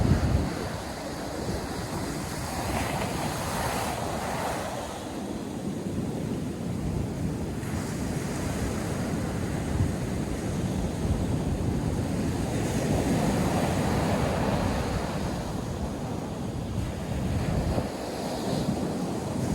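Ocean surf breaking and washing on a sandy beach, swelling and easing every few seconds, with wind buffeting the microphone in low thumps.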